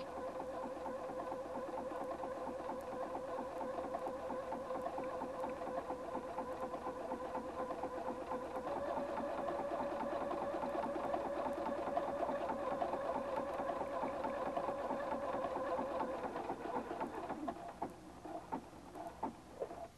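Husqvarna Viking Platinum 770 sewing machine stitching a decorative zigzag stitch at steady speed: a steady motor hum with rapid needle ticking. The pitch steps up slightly about halfway through, then the sound dies away a few seconds before the end, leaving a few faint clicks.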